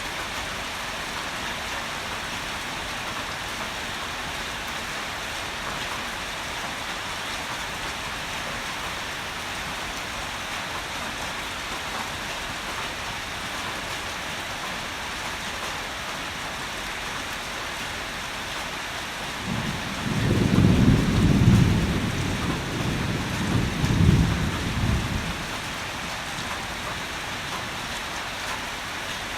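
Steady heavy rain falling, with a loud, low roll of thunder rumbling for about five seconds past the middle, peaking twice.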